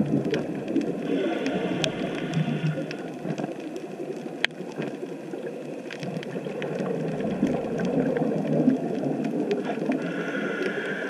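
Underwater sound through a GoPro's housing: a steady low burble of water and bubbles with scattered sharp clicks, and two hisses of about two seconds each, one about a second in and one near the end, from a scuba diver's regulator being breathed through.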